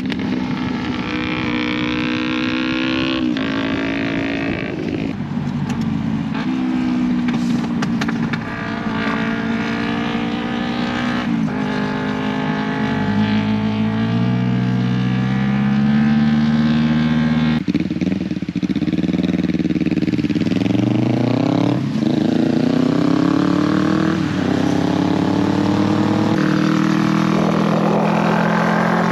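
2008 Kawasaki Ninja 250's parallel-twin engine running at speed. In the second half it accelerates through the gears, its pitch rising and dropping back at each upshift about every two seconds.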